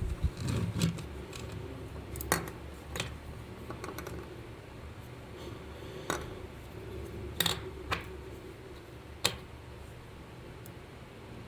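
Scattered sharp clicks and taps from hand work on a small toy, about eight spread unevenly over a faint steady hum.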